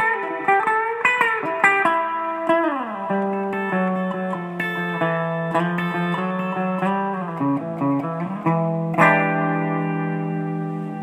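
Background guitar music: picked notes with sliding pitch, then a chord struck about nine seconds in that rings out and slowly fades.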